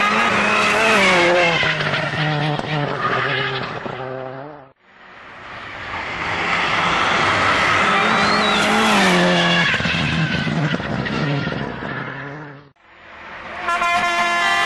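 Rally car engines at full throttle, the pitch climbing and dropping back again and again as the drivers change gear. Two separate runs, each fading out, at about 5 seconds and about 13 seconds.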